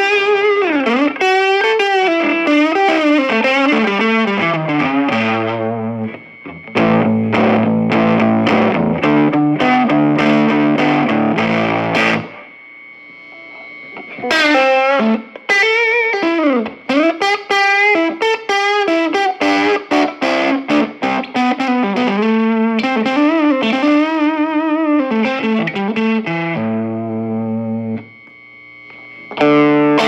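Fender Stratocaster electric guitar played through a red-knob Fender Champ 12 tube combo amp, with overdrive. Lead lines with string bends and vibrato alternate with held chords. The playing breaks off briefly about twelve seconds in and again near the end.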